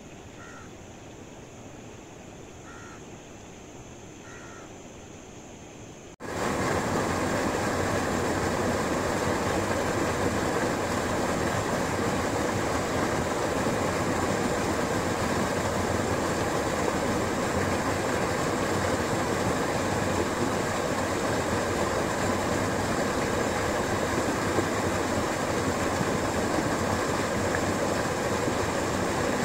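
A crow cawing three times over a quiet background, then, about six seconds in, a sudden change to the loud, steady rush of water falling at a small waterfall.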